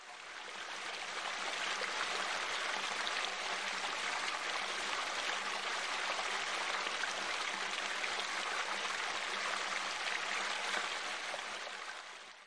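Water splashing steadily over a small weir into a pool, a constant rushing that fades in at the start and fades out at the end.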